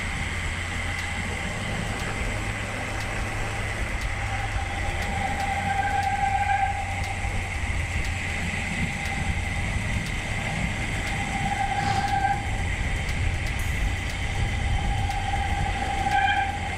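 Wind rushing over the microphone and tyres hissing on a wet road as a bicycle rolls downhill. A disc brake whirs up three times as it is applied, a sound that begins once the brake gets wet.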